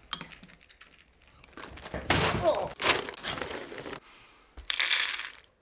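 Dry dog kibble rattling as a plastic scoop digs into a bag of puppy food, the bag rustling. It comes in two noisy bursts with a short pause between, after a single knock at the start.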